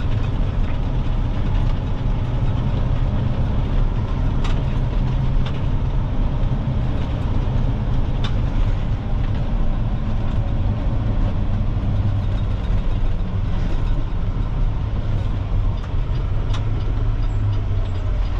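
Dump truck's diesel engine running with road noise, heard from inside the cab while driving, a steady low rumble. A few light clicks or rattles sound now and then.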